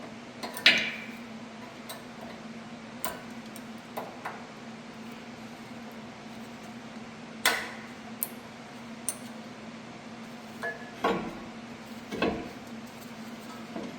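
Sharp metallic clinks and taps at irregular intervals, the loudest about a second in, as a brake pad's steel backing plate is worked into the caliper bracket's spring clips. A steady low hum runs underneath.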